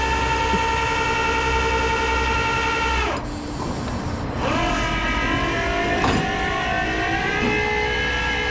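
Rollback tow truck's hydraulic pump running under load with a steady whine. It cuts out about three seconds in, then spins back up with a rising pitch a second and a half later and holds steady.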